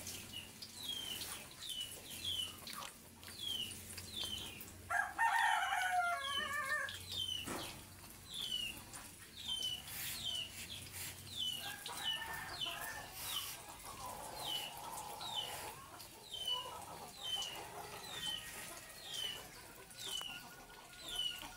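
A rooster crows once, loudly, about five seconds in, with fainter chicken calls later on. All along, short high chirps falling in pitch repeat a little more than once a second.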